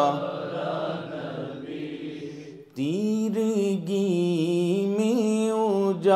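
A single man's voice chanting a line of an Urdu naat in praise of the Prophet, drawn out in long melismatic notes. A held note fades away over the first two and a half seconds, then after a short breath a new long note begins, wavering slightly in pitch.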